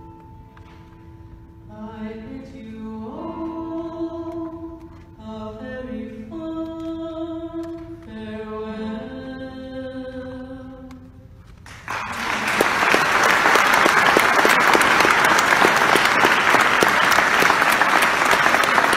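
A young man singing slow, held phrases of a ballad into a microphone, with a sustained instrumental accompaniment; the song ends about twelve seconds in and loud audience applause breaks out and continues.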